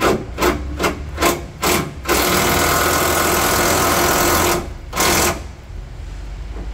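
Cordless power wrench with a 16 mm socket undoing chassis bolts: five short trigger blips about twice a second, then one steady run of about two and a half seconds, and one more short blip.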